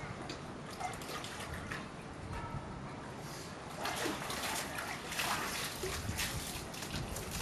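Polar bear cubs splashing and sloshing through shallow pool water, with the splashing louder and busier from about four seconds in.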